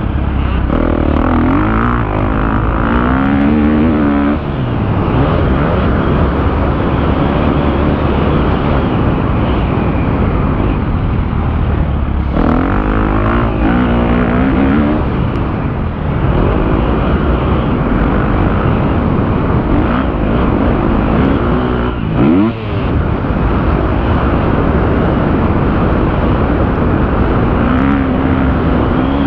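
KTM 250 motocross bike's engine revving hard under the rider, heard close up from the bike itself, its pitch climbing and dropping again several times as the throttle is worked.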